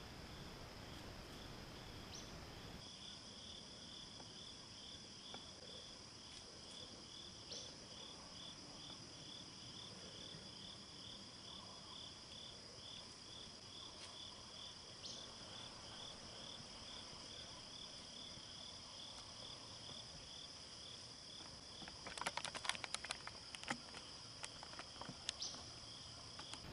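Insects chirping in the woods: a steady high drone with a pulsed chirp repeating about twice a second. Near the end, a short burst of sharp crackling ticks rises above them.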